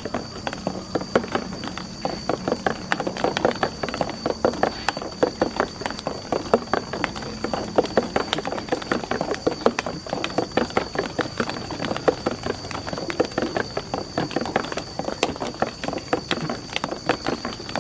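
Marbles rolling and clattering down a marble run track: a dense, irregular stream of small clicks and clacks as the balls knock against the track and each other.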